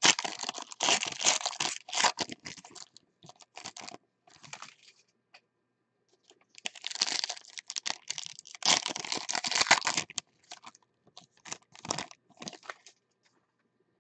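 Trading-card pack wrappers being torn open and crinkled by hand, in several rustling bursts with short pauses between them.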